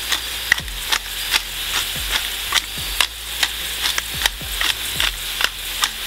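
Potato wedges sizzling steadily in hot oil in a cast-iron kazan, over the regular grinding clicks of a wooden hand pepper mill being twisted, about two or three a second.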